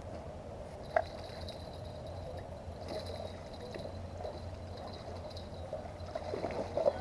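Water splashing and gurgling at the river's edge as a hooked carp is played up to a landing net, with a single sharp knock about a second in and louder, irregular splashes near the end.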